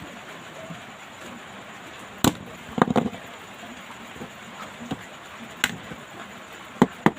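Scattered sharp clicks and taps of small tools and parts being handled while a smartphone is taken apart, over a steady background hiss. A quick cluster of clicks comes near the middle, and two more come close together near the end.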